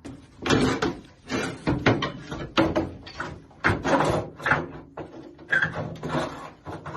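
Irregular scraping and knocking of metal parts inside a Volkswagen door as the window glass is worked free where it is caught on the window regulator. There are about a dozen short, uneven bursts.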